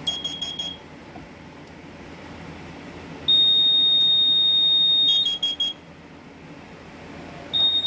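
Carbon monoxide detector sounding on test: a quick run of about four short high beeps, a long steady high beep of about two seconds, four more short beeps, then another long beep starting near the end.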